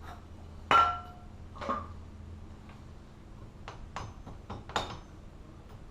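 Metal tools and parts clinking against each other: one loud ringing clink about a second in, a second ringing knock shortly after, then a run of lighter clicks and taps.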